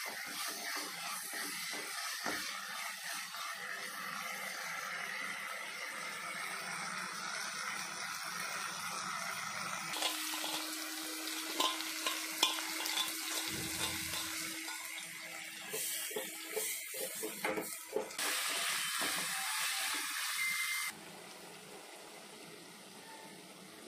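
Green cowpeas with onion and tomato sizzling and simmering wetly in a nonstick kadai, with light clicks and scrapes of a ladle against the pan. The sound drops sharply quieter a few seconds before the end.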